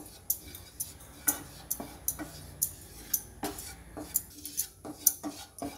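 Wooden spatula knocking and scraping against a non-stick kadai as dry gram flour (besan) is stirred and roasted: irregular light taps, about two to three a second.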